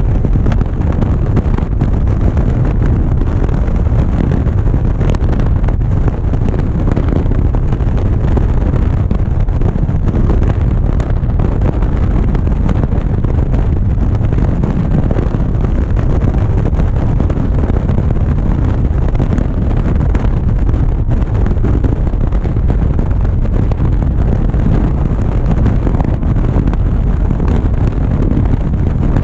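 Wind buffeting the microphone of a motorcycle-mounted GoPro at highway cruising speed, with the motorcycle's engine and tyre noise underneath. It is a steady, loud, low noise that does not change.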